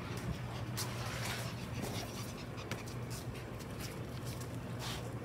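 Faint sounds of a small black-and-tan dog close by, with a few soft clicks, over a steady low hum.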